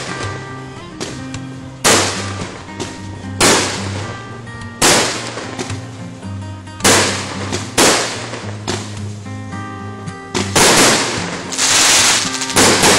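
Aerial firework shells going off as sharp bangs, each trailing into a hiss, roughly every one to two seconds and packed together near the end, over background music.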